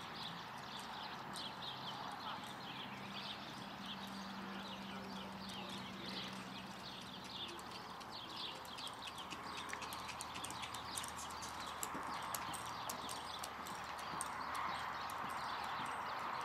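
Hoofbeats of a ridden horse moving around a dirt arena, a continuous run of soft, quick footfalls.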